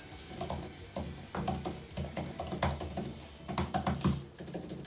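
Typing on an Apple Magic Keyboard for iPad, whose keys use a scissor mechanism: an irregular run of key clicks, a bit loud, the keystrokes thudding through the thin makeshift table it stands on.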